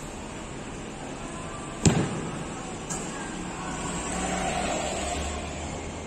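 A football struck hard: one sharp thump about two seconds in, echoing in the indoor hall, then a lighter knock about a second later.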